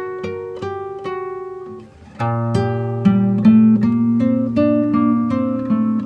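Background instrumental music: a plucked acoustic guitar melody of separate notes. After a brief dip about two seconds in, fuller notes come in over a deeper bass line.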